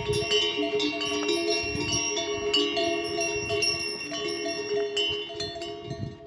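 Neck bells on pack yaks ringing and clanking with their steps as the yaks walk past, many overlapping strikes, fading near the end.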